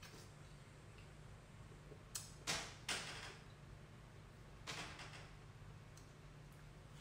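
Bites into juicy watermelon flesh: a few short, wet crunches a couple of seconds in and another near the five-second mark, over a low steady hum.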